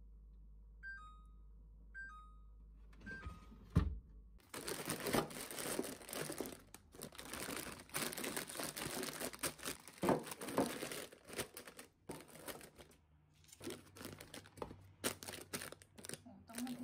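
Plastic instant-ramen packets crinkling and rustling as they are handled and packed into plastic organizer boxes. Near the start come two short two-note electronic beeps about a second apart, then a knock just before the crinkling begins.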